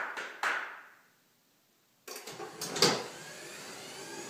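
Two sharp hand claps that ring in the garage. About two seconds in, an automatic garage door opener starts with a few clicks and runs steadily as the door moves.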